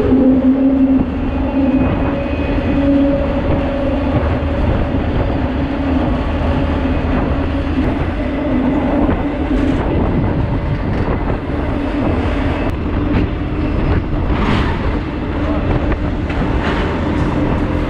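Freight train in motion, heard from aboard an intermodal well car: a steady rumble of wheels on rail with a droning hum that fades about halfway through, and a few sharp clacks near the end.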